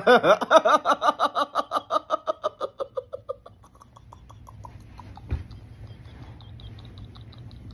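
A man laughing hard: rapid pitched 'ha-ha' pulses about five a second that fade after a few seconds into faint, high, breathless squeaks, with a single thump about five seconds in.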